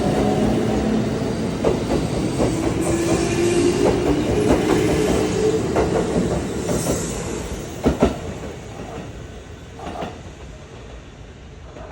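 Kintetsu electric train pulling away, its motors humming with steady tones while the wheels clack over rail joints. The sound fades as the train leaves, with a sharp double clack about eight seconds in.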